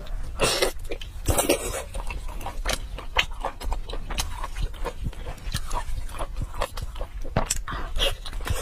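Close-miked mouth sounds of eating braised pork: a dense run of wet smacks and chewing clicks, with two longer, louder sucking sounds about half a second and a second and a half in.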